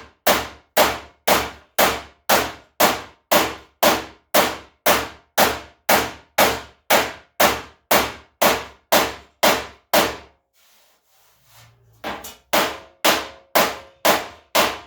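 Hammer tapping the sheet-steel front fender of a 1978 Ford F100 to work out a small dent, a steady run of sharp metallic strikes about two a second. The strikes pause for about two seconds near the end, then pick up again.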